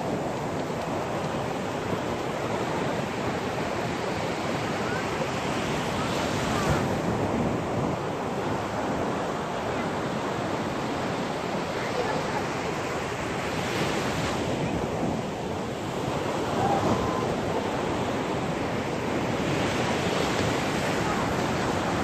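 Sea waves breaking and washing up a sandy shore, swelling louder about every six or seven seconds.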